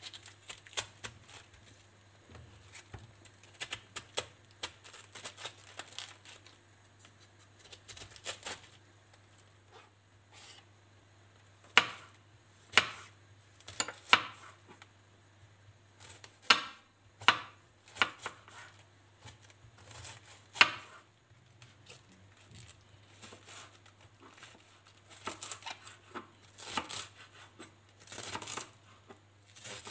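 Kitchen knife cutting a head of white cabbage on a wooden cutting board in irregular strokes. The loudest single cuts come in the middle, and quicker runs of thin slicing near the end shred the cabbage.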